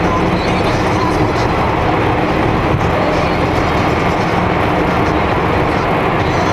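Steady road and engine noise of a car driving at motorway speed through a road tunnel, heard from inside the cabin.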